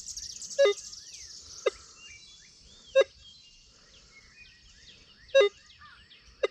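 Minelab Equinox 800 metal detector giving five short beeps at uneven intervals as it is swept over a US nickel lying near a fridge magnet. Birds chirp in the background.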